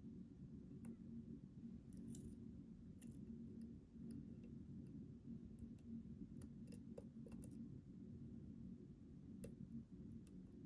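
Faint, irregular light clicks of lock picks and a tension wrench working the pins of a Schlage Primus Everest high-security lock cylinder, over a steady low hum.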